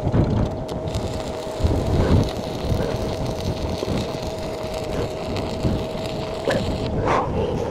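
Stick welding arc crackling steadily, with heavy wind buffeting the microphone; the arc dies away about seven seconds in.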